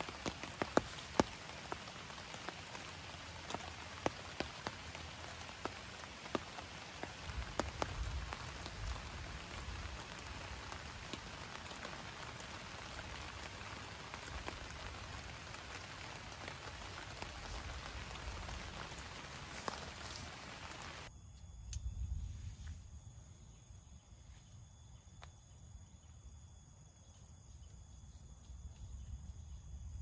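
Heavy rain falling, with many individual drops striking close by as sharp ticks. About two-thirds of the way through it cuts off suddenly, giving way to steady insect calls over a low rumble.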